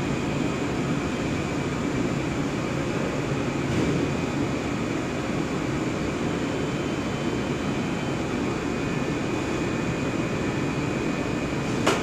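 HDPE blown film extrusion line running: a steady machine drone with a thin, high whine over it. A single sharp knock sounds near the end.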